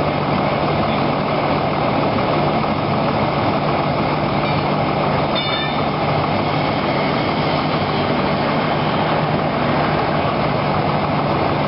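Diesel engine of a truck-mounted crane running steadily with a low hum while the crane lifts a load, with a brief rattle about halfway through.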